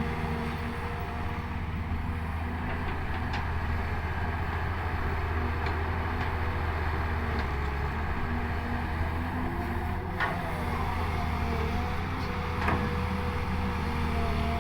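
Hydraulic excavator running under working load: a steady low diesel engine drone, with hydraulic tones that shift in pitch as the machine moves. Two sharp clanks, about ten and twelve and a half seconds in.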